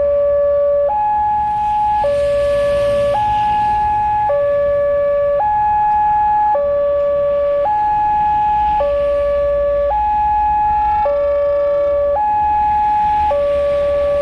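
Railroad level crossing's electronic warning alarm sounding a steady two-tone signal: a lower and a higher tone alternate about once a second, warning of an approaching train.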